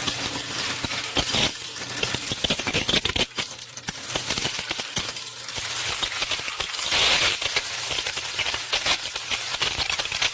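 Loose quarters from a vending machine's coin box clinking and rattling together, a dense run of small metallic clicks, heaviest about seven seconds in.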